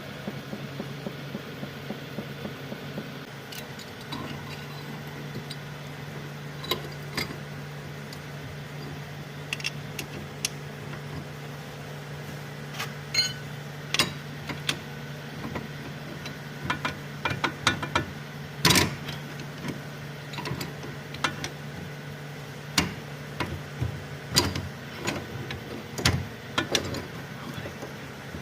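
Irregular sharp metal clinks and knocks of tools on car parts during a joint repair, over a steady low machine hum that stops near the end.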